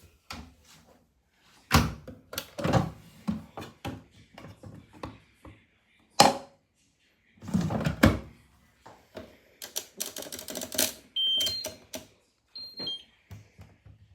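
A Miele W1 washing machine being handled: a run of irregular clicks and thunks, then several short electronic beeps at different pitches near the end.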